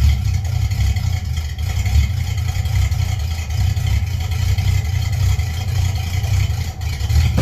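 The Chevy Malibu's 350 small-block V8 running at a steady idle with a deep, uneven rumble. The owner says the engine still has a misfire he has yet to trace.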